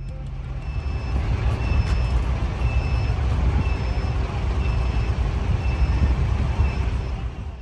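Outdoor city noise: a steady low rumble of traffic or engines, with a faint short beep about once a second. It fades out near the end.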